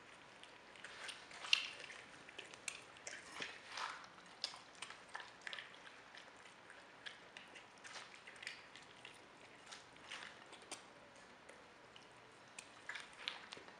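Capybara biting and chewing juicy watermelon: irregular wet crunches and squishes, the loudest about a second and a half in.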